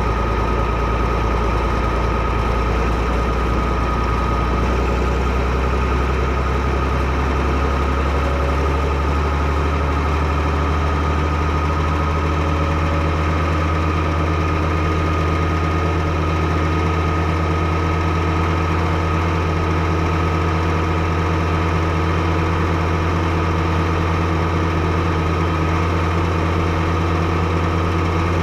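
Fiatagri 115/90 tractor's six-cylinder 5.9-litre Fiat diesel engine running steadily. Its speed picks up slightly about eight to twelve seconds in, then holds.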